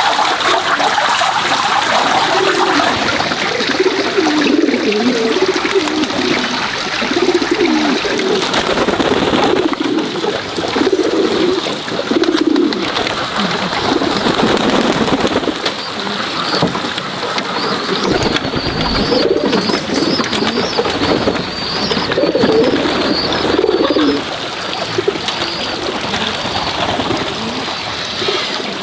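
Pigeons cooing over and over, low calls repeating roughly every second, over a steady background hiss.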